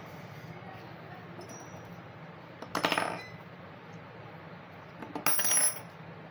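Metal clinking and scraping as a screwdriver pries at a dry cell's metal casing, in two short bursts about two and a half seconds apart.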